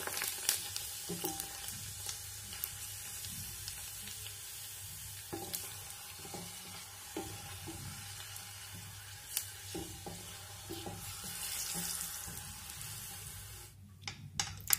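Panipuri shells deep-frying in hot oil: a steady sizzle, with occasional light knocks of a wooden spatula against the pot as they are turned. The sizzle cuts off sharply shortly before the end.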